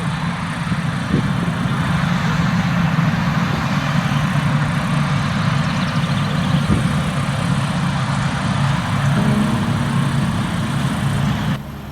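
A vehicle engine running steadily at a low idle, cutting off abruptly just before the end.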